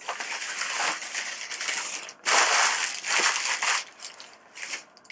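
Wrapping crinkled and crumpled by hand, in two long bursts of crackling noise followed by a few short, fainter ones.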